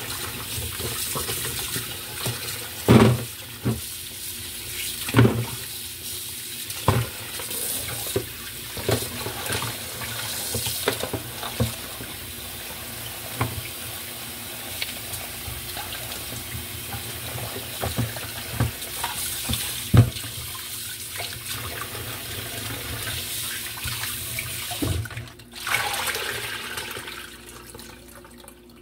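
Kitchen tap running into a stainless-steel sink, splashing over meat being rinsed and rubbed by hand in a metal pot, with a few sharp knocks.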